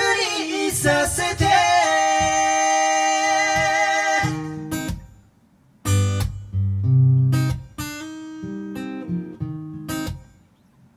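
Singing voice holding a long note over acoustic guitar, fading out about four and a half seconds in. After a pause of about a second, acoustic guitar alone comes back in with strummed chords.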